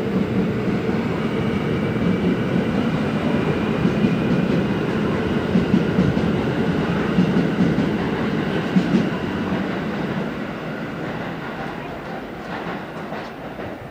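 New York City subway train on the far track running and moving away: a steady rumble of wheels on rail with a faint high whine. It fades gradually over the last few seconds.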